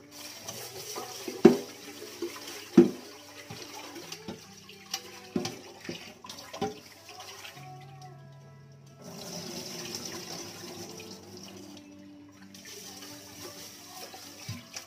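Kitchen tap water running into a rice cooker's inner pot while rice is washed by hand in it, the water stopping briefly twice, with a few sharp knocks of the pot, the loudest about one and a half and three seconds in. Background music plays underneath.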